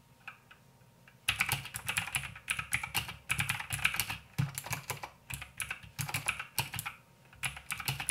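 Royal Kludge RK61 mechanical keyboard with Gateron blue clicky switches being typed on: fast runs of sharp clicks. Typing starts about a second in and pauses briefly near the end.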